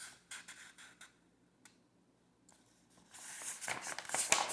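A sheet of printer paper being handled: a few light rustles, a near-quiet pause broken by a single click, then steady rustling and crinkling of the paper from about three seconds in, loudest near the end.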